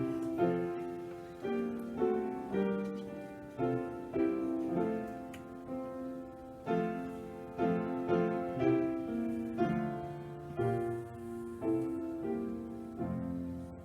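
Piano playing slow, sustained chords and a melody, each note struck and then dying away, as an interlude.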